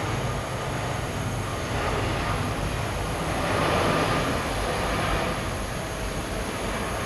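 Jet engines of a Boeing 787-9 at takeoff thrust as the airliner accelerates down the runway: a steady rushing roar that swells to its loudest about four seconds in as the aircraft passes, then eases off.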